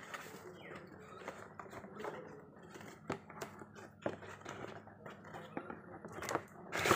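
Cardboard box being handled and opened, its flaps rustling and scraping with scattered light taps and clicks. A louder cardboard scrape comes just before the end as the box is lifted and the contents pulled out.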